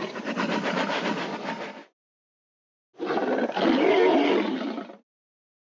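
Dinosaur roar sound effect from an animated intro: two long, rough roars. The first fades out about two seconds in, and a louder second one follows about a second later.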